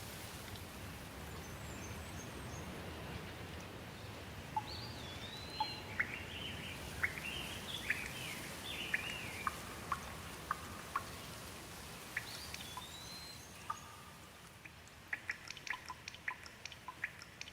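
Rain falling on leaves, a steady hiss, with birds calling over it in chirps and curving whistles. Near the end the rain thins and a quick run of short, sharp ticks comes in.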